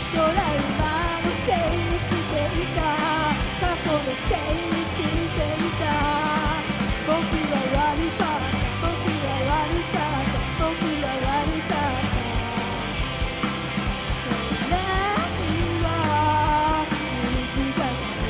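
A rock band playing live, with a singer's voice carrying the melody over electric guitar, bass and drums.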